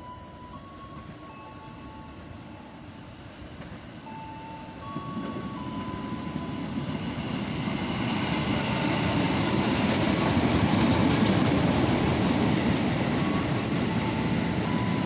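KRL CommuterLine electric commuter train pulling into the platform. Its running noise grows louder through the first half, then a high squeal comes in as it slows to a stop.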